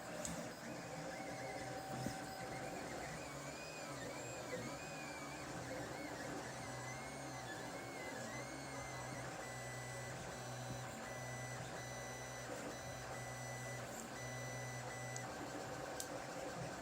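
Lulzbot TAZ 5 3D printer running, its stepper motors whining in short rising-and-falling sweeps as the axes move, then holding steady tones for several seconds before they stop about a second before the end.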